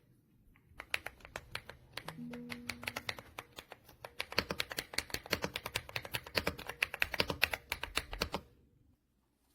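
Fast typing on a mechanical keyboard with pre-lubed linear switches: rapid keystroke clacks, several a second, starting about a second in and stopping shortly before the end, over faint background music.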